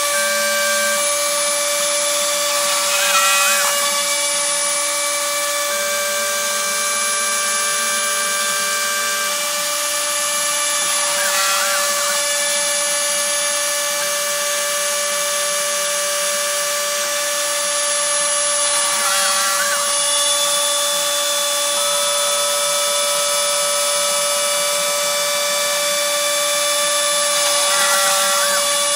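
Dremel rotary tool on a CNC machine, running with a steady whine while cutting. Under it the machine's axis motors sound in tones that jump to a new pitch every second or two, with a brief warbling sweep about every eight seconds as a circle is cut.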